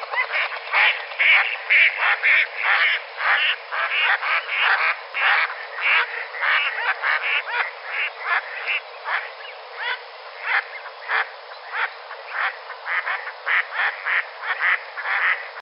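A rapid run of short animal calls, about two or three a second, some louder and some softer, stopping abruptly at the end.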